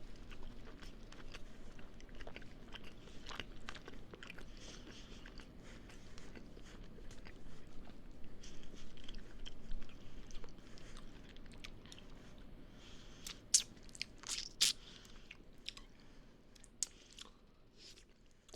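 Close-miked chewing and biting of a burrito: wet mouth clicks and crunches, with a cluster of sharper, louder clicks about three-quarters of the way through.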